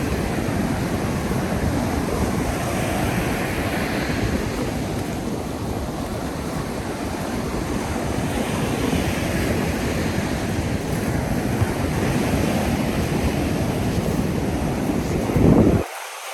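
Ocean surf breaking and washing up the beach in a steady rush that swells now and then, with wind buffeting the microphone. A stronger gust hits the microphone just before the end.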